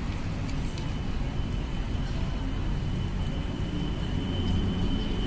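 Steady low rumble of a running engine or nearby traffic, with a thin, steady high whine coming in about a second in.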